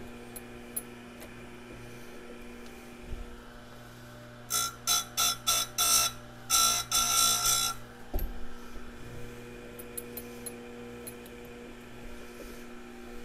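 Electric chain-sharpening grinder motor running with a steady hum, its wheel brought down onto a chainsaw tooth about four and a half seconds in: five short grinding touches, then one longer grind of about a second, each a loud, harsh buzz. The tooth is being ground back past damage from striking metal in a log. A dull knock follows just after.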